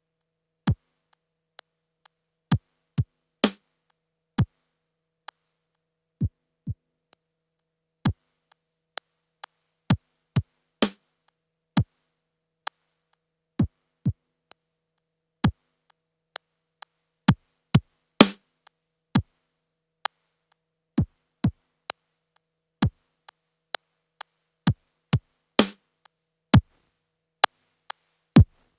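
Yamaha PTX8 drum machine hits played through an Akai EX70C compressor. Sparse, unevenly spaced short electronic drum hits, mostly thuds that drop quickly in pitch, with a few sharper, longer hits about every seven seconds.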